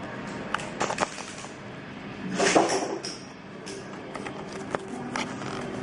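A cardboard toy box being handled and worked open by hand: scattered small clicks and knocks of packaging, with one louder rustling scrape about two and a half seconds in.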